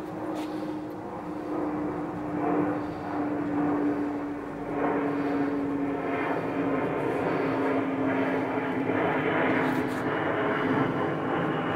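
Airplane passing overhead: a steady engine drone whose pitch falls slowly, under a rushing noise that grows louder about halfway through.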